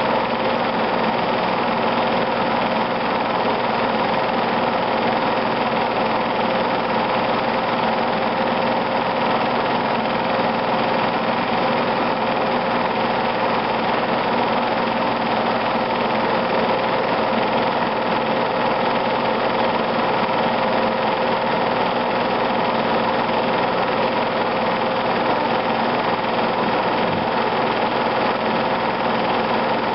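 A film projector running, a steady mechanical whir with a constant hum.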